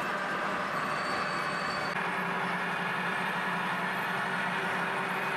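Model train running on a layout: a steady whir of motor and wheels on track.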